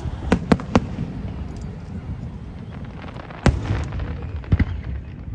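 Aerial fireworks shells bursting. Three quick bangs come within the first second, a loud one about three and a half seconds in, and two close together a second later, over a steady low rumble.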